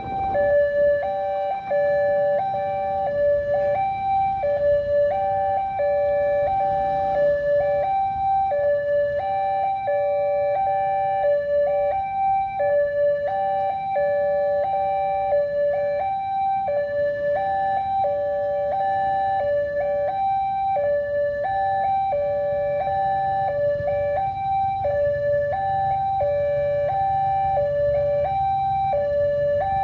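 Railway level-crossing warning alarm sounding a continuous two-tone hi-lo siren, the two pitches alternating about every half second, over a low rumble.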